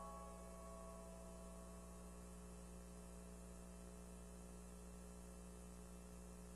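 Near silence with a faint steady hum; the last notes of a piano piece ring out and fade during the first second or two.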